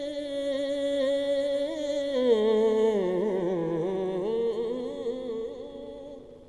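A man's naat recitation voice sung into a microphone without instruments. He holds one long steady note for about two seconds, then slides down into a wavering, ornamented run that fades out near the end.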